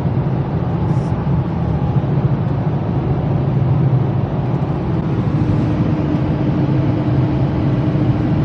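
Steady engine and tyre noise of a car driving, heard inside its cabin. A faint steady hum comes in about five seconds in.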